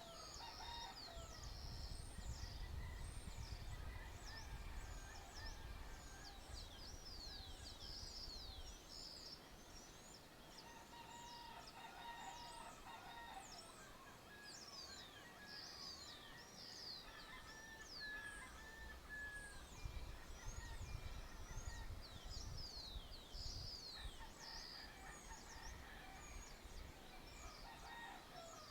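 Dawn chorus in the countryside: many small birds chirping continuously in quick, high, falling notes, with occasional calls from domestic fowl in a farmyard. A low rumble comes and goes underneath.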